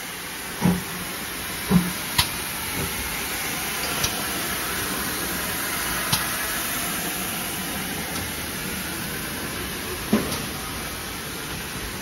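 Steam hissing steadily from a standing GWR Manor class 4-6-0 steam locomotive, No. 7822 Foxcote Manor, swelling slightly midway. A few short dull knocks come in the first two seconds and once more about ten seconds in.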